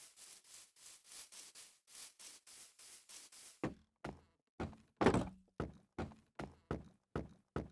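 Fire alarm horns sounding in rapid, evenly spaced pulses: faint and hissy at about five a second at first, then, about three and a half seconds in, louder and lower at about three a second.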